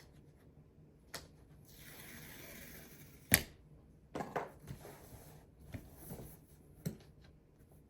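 Packaging on an Apple Vision Pro box being torn open: a steady tearing rustle for a second and a half, then a sharp snap. Smaller clicks and short rustles follow as the box is handled.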